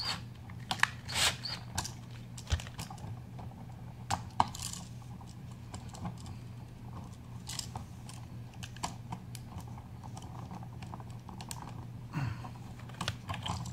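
Scattered clicks and scrapes of a screwdriver tightening a terminal screw on an electrical outlet and of the stiff wire being worked under it, over a steady low hum.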